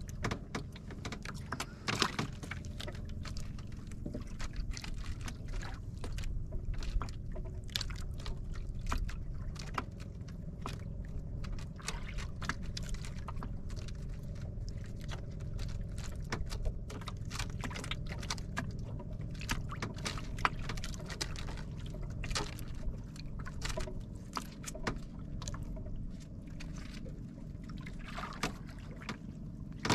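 Sea water lapping and splashing against the hull of a small drifting outrigger boat, many small irregular splashes over a steady low rumble.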